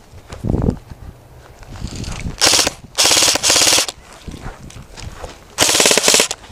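Airsoft gun firing several short bursts of rapid shots, the longest about a second, with a dull thump shortly before the first burst.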